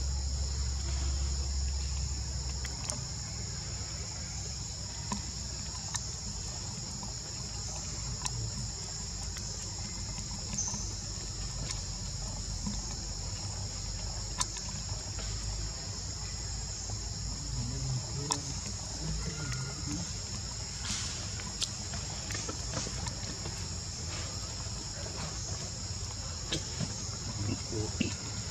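Steady high-pitched insect chorus of crickets or cicadas, over a low rumble, with occasional faint clicks.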